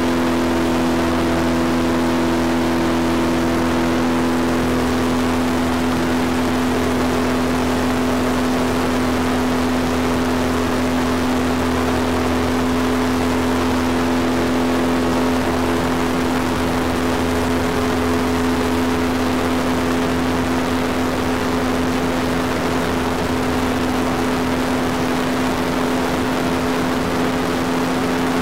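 Airboat engine and propeller running at steady speed: a loud, even drone at one pitch.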